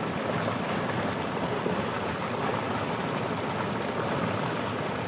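Fast-flowing floodwater rushing steadily, an even noise without breaks.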